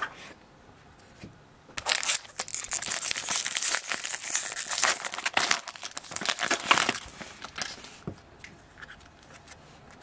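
Foil wrapper of a jumbo pack of baseball cards being torn open and crinkled. The crackling starts about two seconds in and dies away after about seven seconds.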